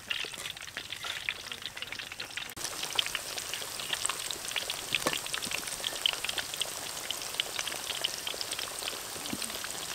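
Chicken pieces deep-frying in hot oil in a wok, a dense, steady crackle and sizzle.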